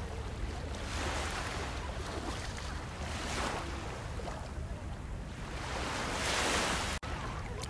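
Small waves washing onto a sandy shore, swelling every couple of seconds, with wind rumbling on the microphone.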